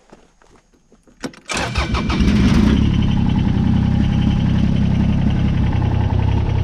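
A 2003 Kubota BX22 compact tractor's three-cylinder diesel engine starts about a second and a half in. It runs briefly with a harsher edge, then settles to a steady idle.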